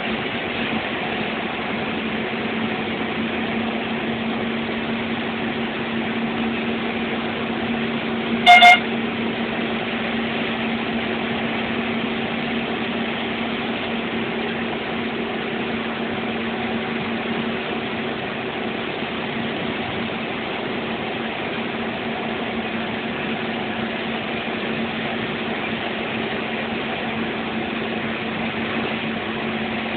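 Steady drone of a bus's engine and road noise heard from inside the cab, with a single short horn blast about a third of the way in.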